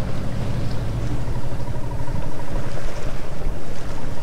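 Sailing yacht under way with its engine running steadily, wind buffeting the microphone.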